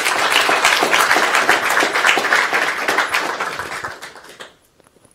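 Audience applauding: dense, many-handed clapping that fades away about four seconds in.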